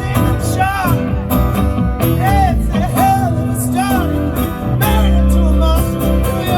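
Live rock band playing an instrumental passage: a lead guitar line with repeated string bends over bass and drums.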